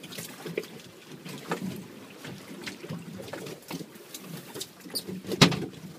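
Waves slapping and lapping against a small fishing boat's hull, with scattered small knocks and one sharp, loud knock about five and a half seconds in.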